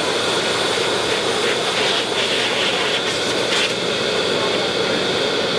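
High-velocity dog grooming dryer blowing: a loud, steady rush of air with a high whine over it.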